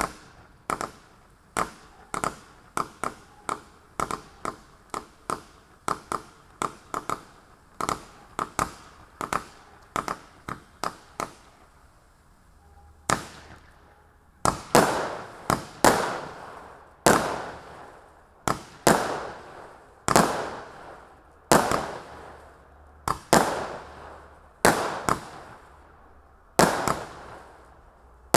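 A 92-shot firework cake firing its shots one after another. First comes a quick run of sharp bangs, about two a second. From about halfway the bangs are louder, with longer tails, about one every second and a half.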